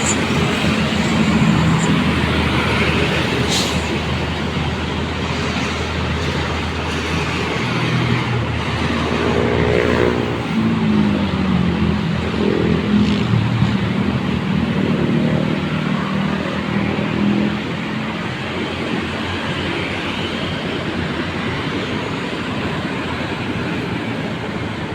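Road traffic: a steady stream of vehicles passing, with tyre noise and engine hum. Engine sounds swell as vehicles go by in the middle of the stretch, one passing close about ten seconds in.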